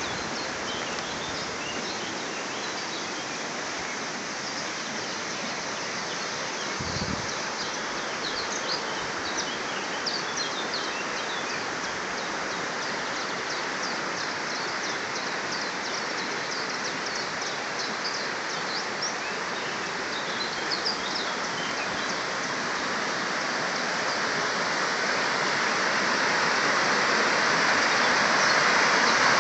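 Freshly lit campfire burning up, a steady crackling hiss that grows louder over the last several seconds as the fire catches, with small high chirps scattered through the middle.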